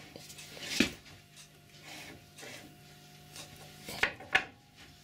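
Metal parts of a Colchester lathe's cross slide and taper turning attachment scraping and rubbing as they are worked loose by hand, with a sharp knock about a second in and two more close together near the end.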